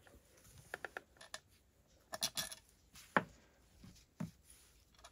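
Scattered light clicks and clinks of small steel parts being handled on a workbench: loosened chainsaw crankcase bolts being picked out and set down, a few sharp knocks in a small cluster about two seconds in.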